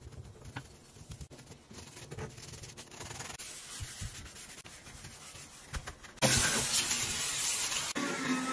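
Quiet rubbing and scrubbing of a cloth and brush on a chrome faucet. About six seconds in, a loud steady hiss starts abruptly: a handheld steam cleaner's jet.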